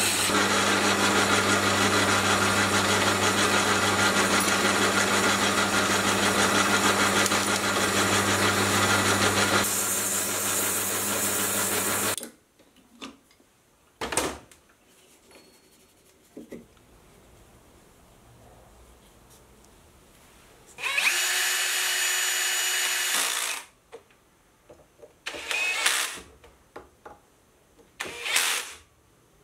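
Geared-head metal lathe running steadily while a cutting tool turns an MDF disc into a honing wheel, shaving off the MDF; it stops suddenly about twelve seconds in. Later a cordless drill drives screws, one run of about two seconds and a few shorter bursts.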